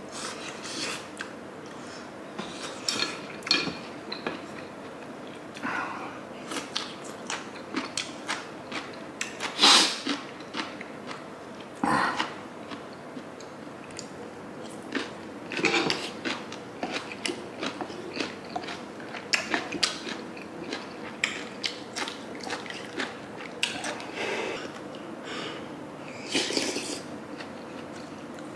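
Close-miked eating sounds: wet chewing of a mouthful of hot sundae gukbap, with a few louder puffs of breath through the lips as the scalding food is blown on.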